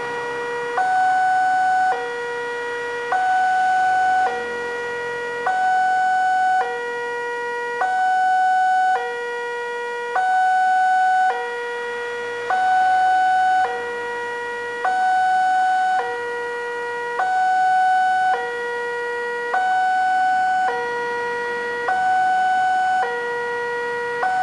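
Railway level-crossing warning alarm sounding from the horn loudspeaker on the signal post, the signal that a train is approaching and the crossing is closed. An electronic two-tone alarm alternates evenly between a higher and a lower tone, each a little over a second long, the higher tone louder.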